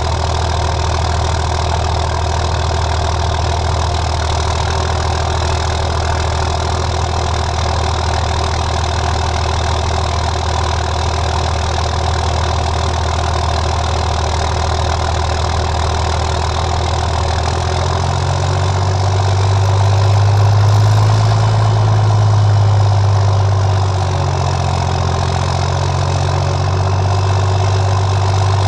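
Dodge Ram's Cummins inline-six diesel idling steadily after a cold start. About two-thirds of the way through, the idle note shifts and swells a little for a few seconds, then settles back.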